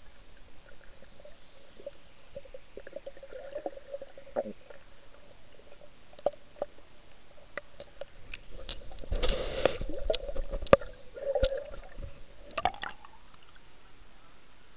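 Muffled underwater sound picked up by a snorkeler's camera held below the surface: scattered clicks and a faint steady hum, with a louder burst of rushing, bubbling water about nine seconds in.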